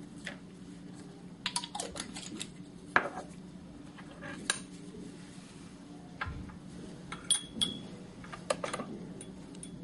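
Glassware clinking and knocking on a lab bench as a small glass beaker and a reagent bottle are handled and set down: a scatter of sharp clinks, the loudest about three seconds in, over a steady low hum.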